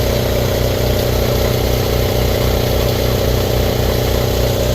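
Air compressor running steadily, its pump giving a loud, even pulse several times a second. It is running smoothly again after a repair, 'purring like a kitten'.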